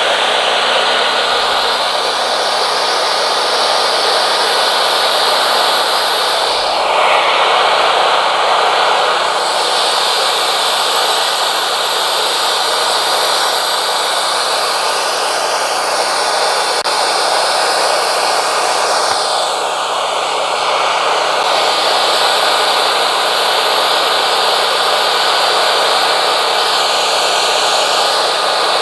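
Woodmizer LT40 Wide bandsaw mill running steadily, its blade sawing yellow pine cants into 2x6 boards. The noise changes character twice, about seven seconds in and again around twenty seconds in.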